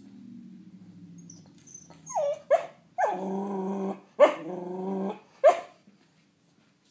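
Cocker spaniel puppy growling low for about two seconds, then barking five times, two of the barks drawn out for about a second each.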